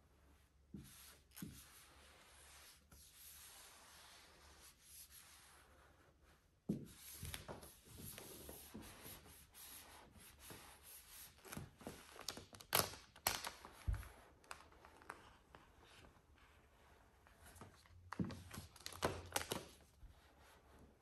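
Microfiber towel rubbing over matte black vinyl film as it is smoothed onto a car hood, in irregular scratchy strokes, with the film rustling where it is held and lifted. The strokes grow louder in clusters about halfway through and again near the end.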